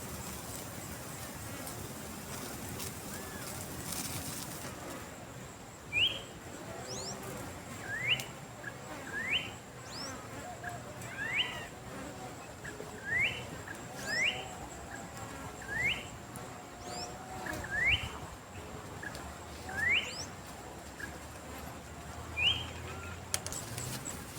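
A bird repeats a short, rising chirp about every one to two seconds, starting about six seconds in. Before that, a high, steady hiss cuts off about five seconds in.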